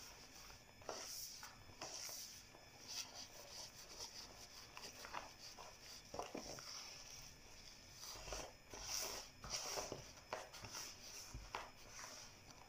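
Hands mixing and kneading soft mandazi dough in a plastic basin: faint, irregular scuffs and soft pats.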